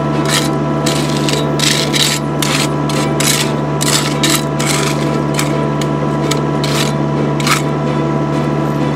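Caterpillar 305E2 CR mini excavator's diesel engine idling steadily, with a hand tool scraping and dragging through crushed stone in short, irregular strokes that thin out after about five seconds.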